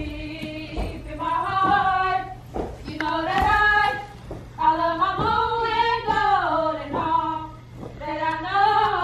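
A group of women singing together in sung phrases with short breaks between them, one note held for a couple of seconds about five seconds in.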